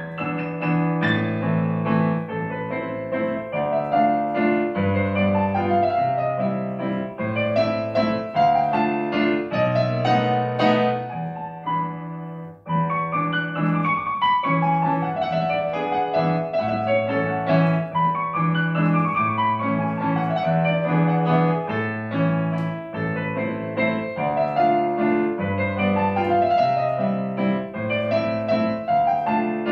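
Solo classical piano played on a digital piano: steady bass notes under chords and a running melody, with a brief break about twelve seconds in before the playing picks up again.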